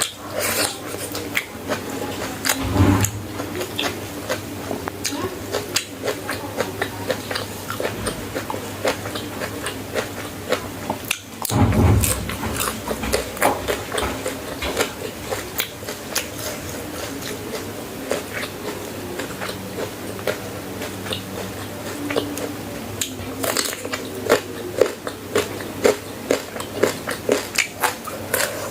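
Close-miked chewing and crunching of food, with many short crackly bites, typical of a mukbang. There are two dull thumps, one about 3 seconds in and one about 12 seconds in.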